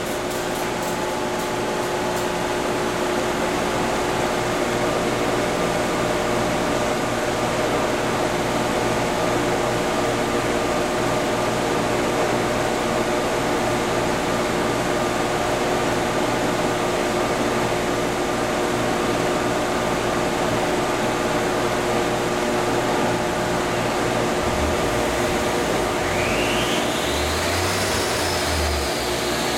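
Stock R56 Mini Cooper running on a chassis dynamometer, heard as a steady fan-like rush with several steady hums. Near the end a whine rises in pitch and then holds, as the car starts to drive the dyno rollers.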